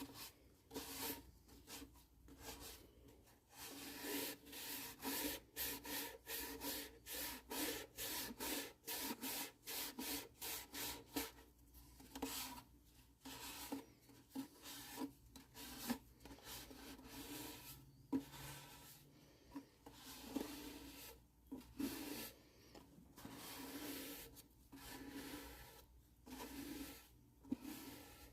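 Rhythmic back-and-forth rubbing on the ukulele's wooden body as a shellac friction polish (shellac, denatured alcohol and boiled linseed oil) is worked in by hand, about two strokes a second at first, then slower and more irregular from about midway.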